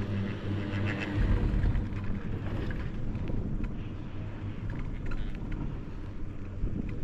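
High-speed detachable chairlift running, heard from the chair: a steady low mechanical hum, with a heavier rumble setting in about a second in.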